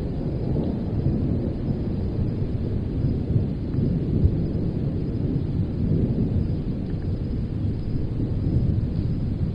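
Distant thunder rumbling low and continuously, with soft wind, swelling and easing without any sharp crack.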